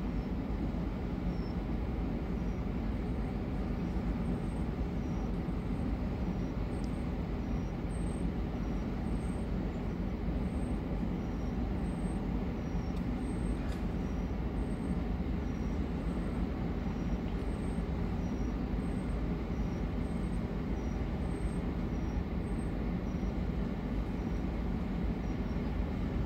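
Steady low rumble and hiss from a cruise ship's engines and propellers working as it manoeuvres alongside a quay, even throughout with no distinct events.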